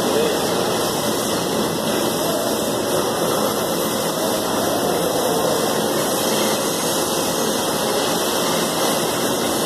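Steady, loud machinery noise from an abattoir line: a carcass-splitting saw and plant equipment running, an even rushing din that stays level throughout.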